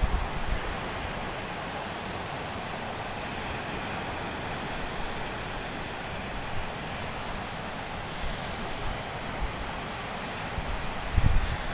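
Surf breaking and washing up a sandy beach, a steady rushing hiss, with wind buffeting the microphone in short low rumbles at the start and again near the end.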